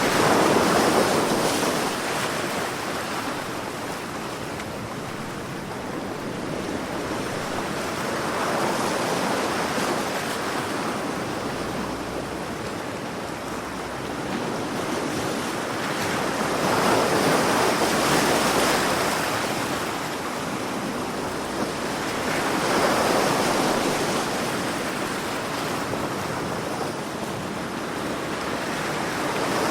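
Sea waves breaking and washing on the shore, swelling to a surge about every six seconds and easing back between, with steady surf hiss underneath.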